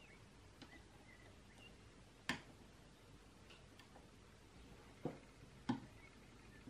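Quiet bench room tone with a few light clicks and taps, one about two seconds in and two close together a little after five seconds, from a circuit board being handled in a helping-hands clamp and touched with a soldering iron while its sockets are soldered.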